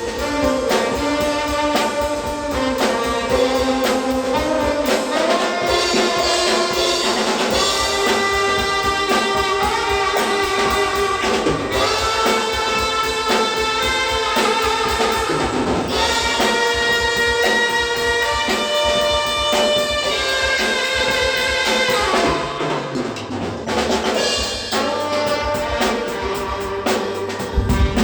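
Tenor saxophone playing a slow pop-rock melody in long held notes, with a drum kit keeping the beat underneath.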